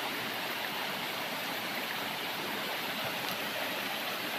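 Steady rush of a fast, rocky mountain stream, the water running over boulders in a continuous even noise.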